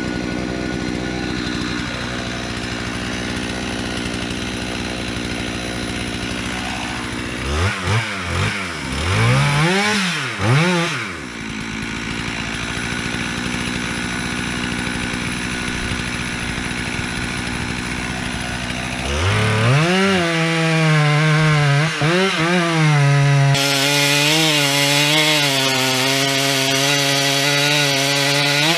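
Two-stroke chainsaw idling, blipped up and down a few times about eight seconds in. About nineteen seconds in it revs to full throttle and holds there, its pitch wavering as it works under load in the cut of a beetle-killed pine.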